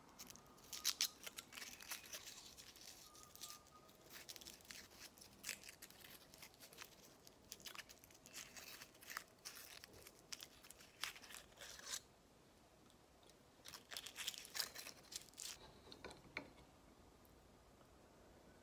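Foil wrapper of a Hershey's Kiss crinkling and crackling as it is peeled open between the fingers, in two runs of sharp crackles with a short pause between them.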